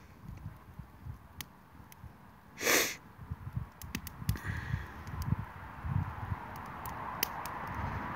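Wood campfire crackling, with scattered sharp pops throughout and one short, loud burst of breathy noise about three seconds in.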